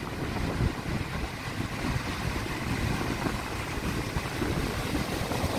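Heavy storm surf: large waves breaking and churning into foam in a steady rumbling wash, with wind buffeting the microphone.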